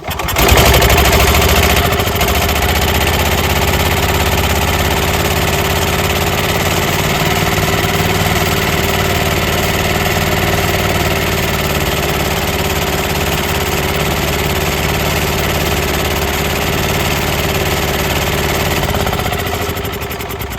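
Gas golf cart engine running close to the microphone, coming in suddenly and holding a steady, fast speed, then dropping away near the end. The engine is being run while the owner troubleshoots a lack of power, which he suspects comes from a tampered carburettor adjustment screw.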